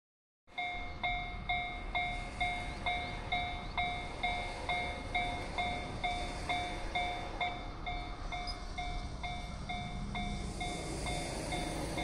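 Japanese level-crossing warning bell ringing its repeated electronic 'kan-kan' tone, about two strokes a second, signalling that a train is approaching and the barrier is coming down. A low rumble builds near the end.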